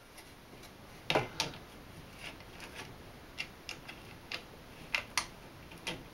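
Irregular light metallic clicks and taps as countersunk bolts are fitted and tightened into an aluminium dovetail template on a pantorouter, the loudest pair about a second in.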